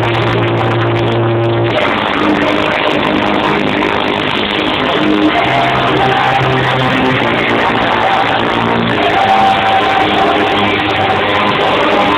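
Loud electronic dance music from a club DJ set over the sound system, with long held bass notes under a melody.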